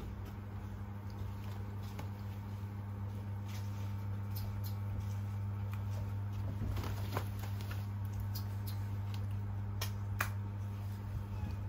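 A steady low hum, with scattered small clicks and taps over it, the sharpest about seven and ten seconds in.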